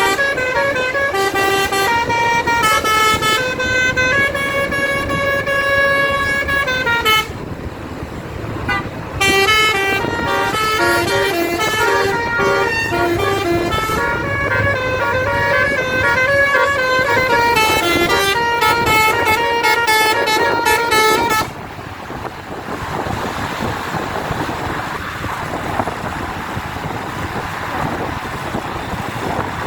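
Bus 'basuri' telolet musical horn playing a tune in stepped notes, pausing briefly about a quarter of the way in, then resuming. It stops about two-thirds of the way through, leaving a steady rushing noise.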